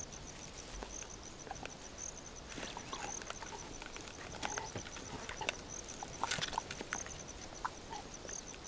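Leopards chewing and gnawing on the remains of an old kill, with scattered crunching clicks, over a faint, steady high insect pulsing several times a second.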